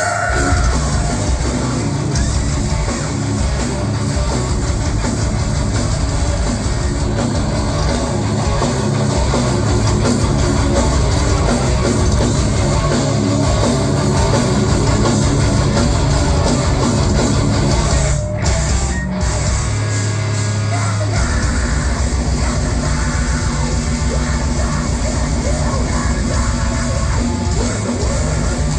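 Live heavy metal band playing loud, with distorted guitars and yelled vocals. The sound briefly cuts out twice about eighteen seconds in, then a low held note rings for about a second.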